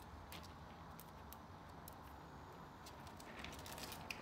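Faint, scattered clicks and scratches of ferrets moving about a wire cage, claws on the wire ramp and pellet litter, growing more frequent near the end, over a low room hum.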